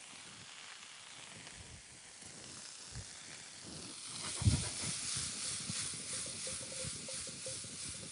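Mixed vegetables frying in olive oil in a frying pan, a steady sizzle. About halfway through there is a knock from the pan, and after it the sizzle grows louder and crackles.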